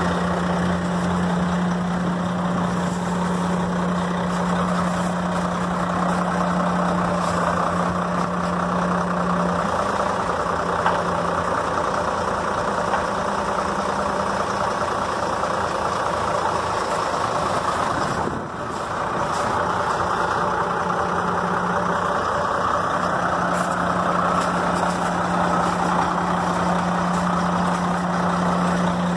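Ford L8000 truck engine idling steadily, an even low hum, with a brief dip about two-thirds of the way through.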